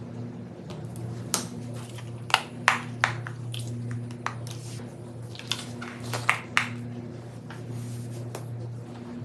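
Fidget toys being handled: irregular short, sharp clicks and squishes, about a dozen, over a low steady hum.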